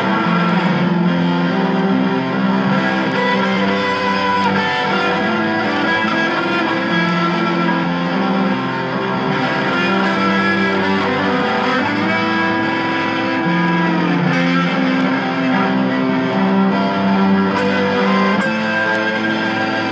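Electric guitar improvising in a minor key: a continuous run of sustained notes with a few bent notes.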